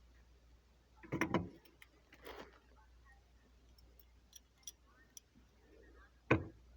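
Scattered knocks and light clicks of handling, a cluster of knocks about a second in and a single loud knock near the end, with a few faint ticks in between.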